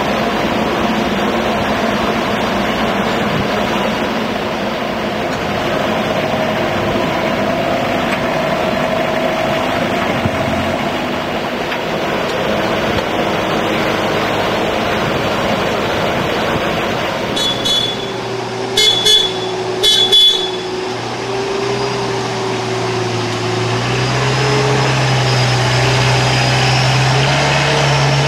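Combilift four-way forklift running with a steady engine and hydraulic drone, three short high beeps about two-thirds of the way through, and the engine note stepping up in pitch near the end.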